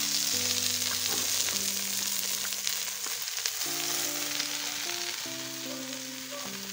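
Oil and onions sizzling in a metal cooking pot as handfuls of chopped leafy greens are added and pressed down into it. Soft background music of held notes plays underneath.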